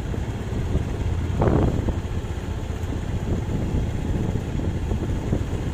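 Small underbone motorcycle engine running as the bike rides along, a steady low rumble with a brief louder swell about a second and a half in.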